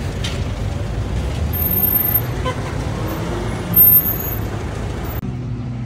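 Steady low rumble of road traffic and running vehicle engines, with a short louder burst about four seconds in.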